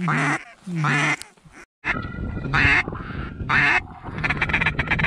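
Mallard duck call blown in the blind: loud drawn-out hen quacks about one a second, then a fast run of short feed-call notes from about four seconds in, calling to circling ducks.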